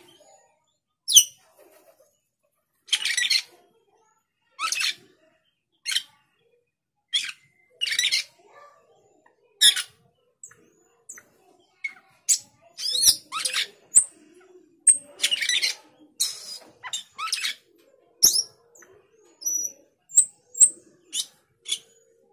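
Male Asian glossy starling giving short, sharp, high squeaky calls at irregular intervals, coming faster in the second half. These are a male's calls to a rival.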